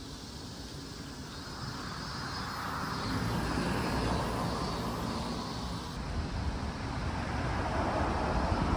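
A passing vehicle: engine and road noise swell a couple of seconds in, ease slightly, then rise again near the end.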